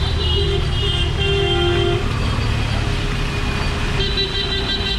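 Busy city street traffic: vehicle engines running steadily while horns give several short toots in the first two seconds and a longer honk near the end.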